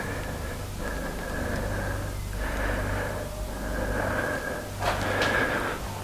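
A person breathing audibly close to the microphone, a run of breaths each about a second long.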